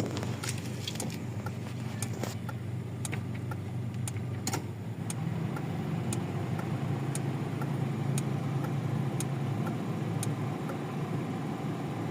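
Toyota 4A-FE inline-four engine idling steadily and quietly, its misfire now gone. The idle note rises a little about five seconds in. Light ticks come through roughly once a second.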